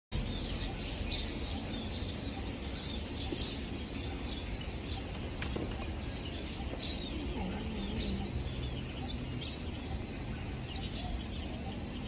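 A flock of scaly-breasted munias calling: many short, high chirps scattered throughout, overlapping one another, over a steady low background rumble.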